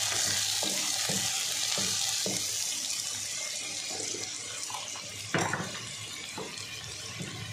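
Chopped tomatoes, green chillies and onions sizzling in hot oil in a wok, a steady hiss that slowly fades. A wooden spatula knocks against the pan now and then, loudest a little past two-thirds through.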